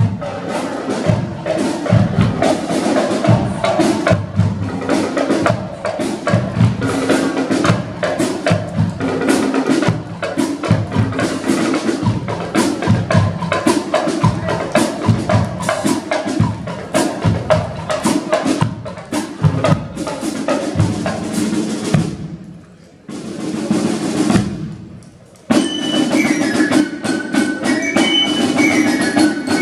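Marching band drum corps, snare drums and bass drum, playing a brisk marching beat. Near the end, after a brief break, a high melody on the band's wind instruments joins the drums.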